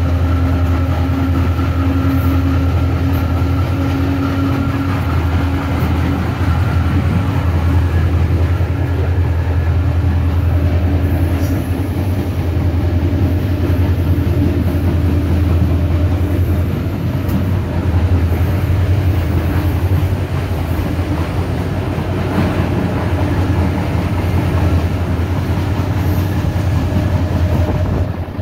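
EMD GT26CW diesel locomotive's V16 two-stroke engine working under load as the train accelerates, a steady heavy low hum heard from on board just behind the locomotive, along with the train's wheels running on the rails.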